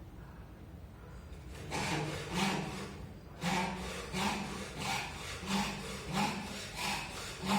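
Rhythmic back-and-forth scraping strokes on wood, about one and a half a second, starting a little under two seconds in.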